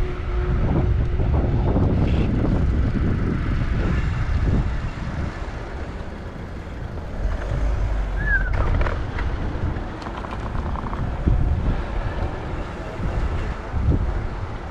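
Wind buffeting the microphone and rolling noise while riding a VanMoof A5 e-bike, uneven and gusty. A faint steady motor whine stops just under a second in, and a brief high chirp comes about eight seconds in.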